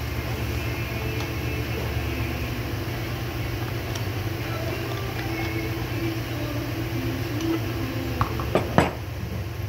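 Handling noise from a pneumatic vertical grinder being assembled, with small knocks and clicks of the metal tool and its side handle against a table over a steady low hum. Near the end come a few sharper knocks as the grinder is turned over and set down.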